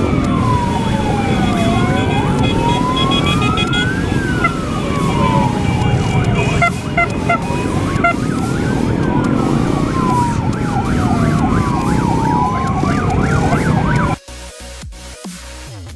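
Sirens wailing, rising and falling slowly and overlapping one another, over the running of many motorcycle engines in a large group ride. About fourteen seconds in, this cuts off abruptly to electronic music.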